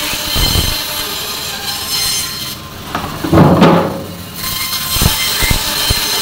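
Meat-cutting band saw slicing through a whole frozen fish: a steady grinding hiss with a high whine from the blade. About halfway through the cutting noise eases off and a short, loud scrape sounds. Then the blade cuts again.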